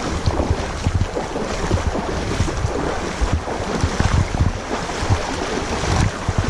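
Wind buffeting the microphone in uneven low gusts over a steady rush of moving river water.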